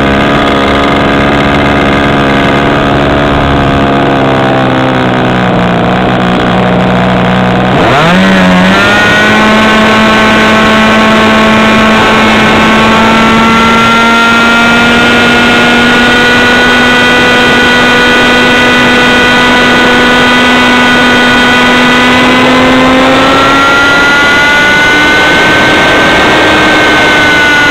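Model airplane glow-plug engine, heard from a camera mounted just behind its cylinder head. It runs at a lower pitch at first, then opens up sharply about eight seconds in to a steady, high-pitched, loud note at high throttle. The note climbs a little more near the end and then eases back.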